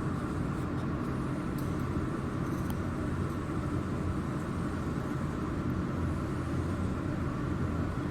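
Steady low hum of a jewelry laser welding machine running, with a few faint sharp ticks in the first few seconds as the laser is pulsed onto small parts.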